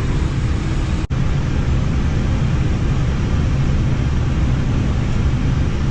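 Steady noise of air rushing past and engines running, heard inside an airliner's flight deck on short final before touchdown, mostly deep in pitch. It cuts out for a split second about a second in.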